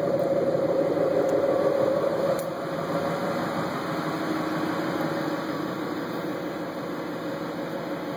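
2010 Ford Mustang GT's 4.6-litre V8 idling steadily through its exhaust, a little louder for the first two seconds and slightly quieter after that.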